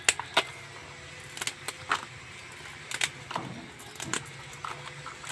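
Hard shells and claws of live land crabs clicking and clattering against each other and the plastic basin as hands sort through them: a run of irregular sharp clicks and knocks.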